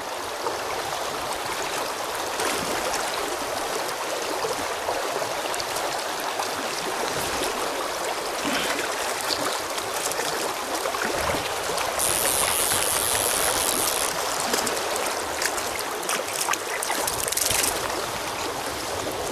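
River current flowing steadily over a shallow stretch, with a brief high hiss about twelve seconds in.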